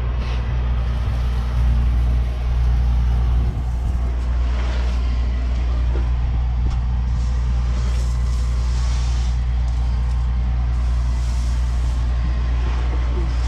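Large engine running steadily at an even speed, a deep constant hum, with a few faint knocks.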